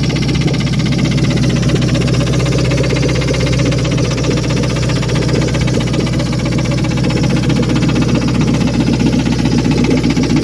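Engine idling steadily with a fast, even knocking tick. The owner cannot place the cause: rod knock, a lifter, or the timing chain.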